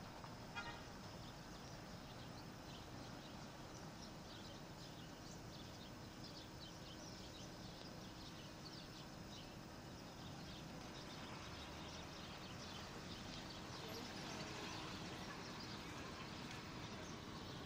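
Faint outdoor town ambience: a steady low hum with many short, high chirps of small birds, thickest in the middle stretch.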